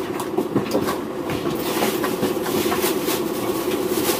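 A steady mechanical hum, with scattered light clicks and scrapes of a utensil and plate as spaghetti is served from a foil tray.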